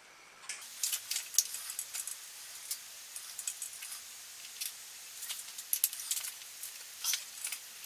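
Small metal screws and an Allen key clicking and clinking against the metal housing of a small outboard motor as they are handled: a scatter of light, sharp metallic clicks, the sharpest about a second and a half in.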